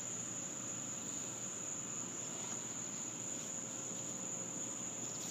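Crickets trilling steadily in one high, unbroken note, over a faint background hiss.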